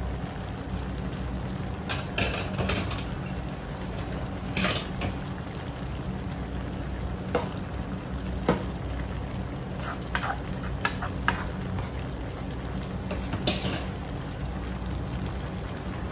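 A metal spatula stirs a simmering stew in a wok, scraping and clinking against the pan about ten times at irregular intervals. A steady low hum runs underneath.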